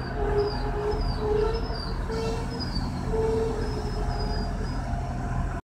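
SA132 diesel railcar pulling in along a station platform: a steady low engine and running rumble with a string of short squeals, about one or two a second. The sound cuts off abruptly near the end.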